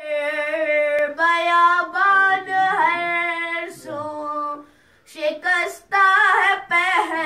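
A boy reciting a noha, an Urdu mourning lament, unaccompanied: his high voice holds long, wavering notes, with a short pause about five seconds in.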